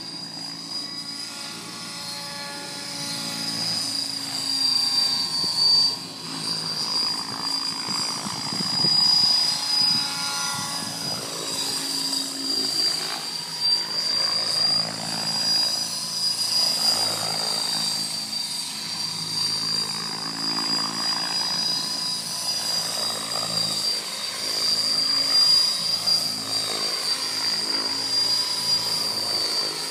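Logo 800 electric radio-controlled helicopter flying 3D aerobatics: rotor-blade whoosh that swells and fades as it flips and passes, over a steady high whine.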